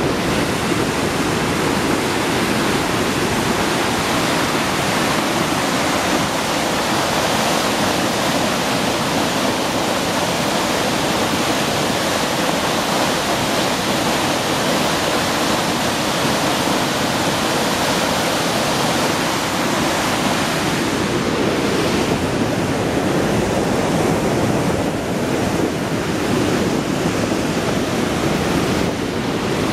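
Magog River white water churning through the gorge below a footbridge: a steady, loud rushing roar with no let-up.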